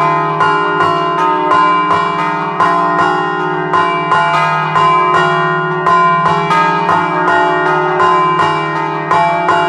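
Scampanottata on a ring of three bronze church bells in E-flat, cast by De Poli in 1947. The bells hang still while a ringer pulls ropes tied to their clappers, striking them in a quick, rhythmic run, and each stroke rings on over the next.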